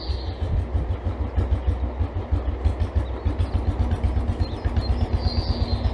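Royal Enfield Bullet single-cylinder motorcycle engine idling with a fast, even thump.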